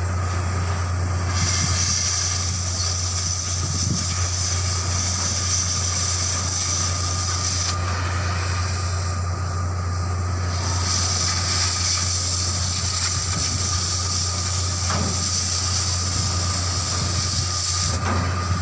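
Arc welding: two runs of several seconds each of high, steady arc hiss, one starting about a second in and one soon after the middle, each stopping abruptly, over a steady loud low machinery hum.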